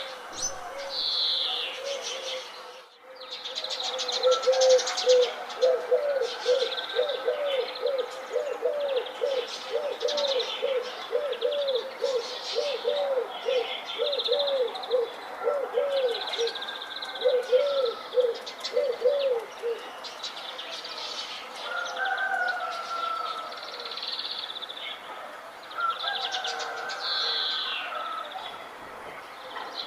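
Several birds calling together. One bird gives a low call over and over, about two a second, starting a few seconds in and stopping about two-thirds of the way through, while other birds keep up higher chirps and warbles.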